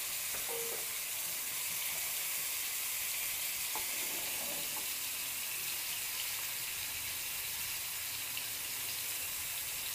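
Chilli-marinated fish steaks shallow-frying in a little hot oil in a pan on their first side: a steady, even sizzle.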